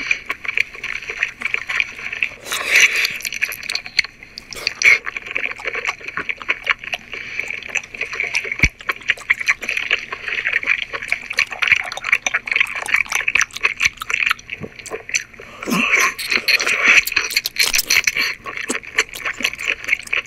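Close-miked mukbang eating sounds of a whole cooked octopus being chewed: a dense run of wet, sticky mouth clicks and smacks, louder in a few short stretches.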